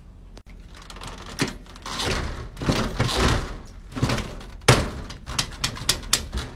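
A door knocking and rattling in its frame, with the keys hanging from its deadbolt clinking. There are several sharp knocks, the loudest about two-thirds of the way in, then a quick run of clicks.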